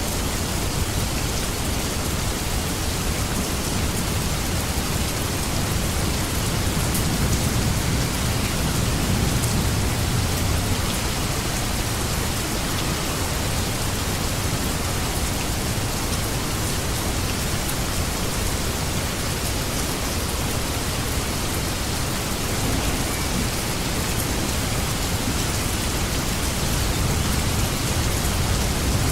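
Steady rain falling, a dense even hiss with a heavy low rumble beneath it that swells a little about eight seconds in and again near the end.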